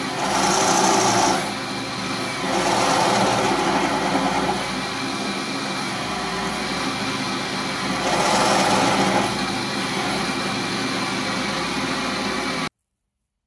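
Electric motor driving a belt-and-pulley test rig through a 3D-printed ABS clutch, running steadily, with louder stretches three times. The sound cuts off abruptly near the end.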